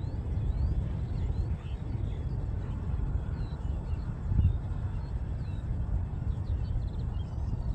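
Wind buffeting the microphone as a steady, gusty low rumble, with small birds chirping and twittering thinly over it.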